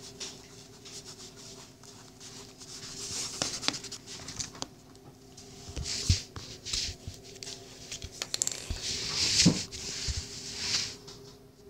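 Handling noise: irregular rustling and scratchy swishes as the recording phone is moved about over the colouring book, with a few soft thumps.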